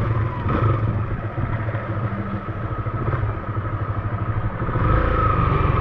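Motorcycle engine running on the move, easing off for a couple of seconds in the middle and picking up again near the end.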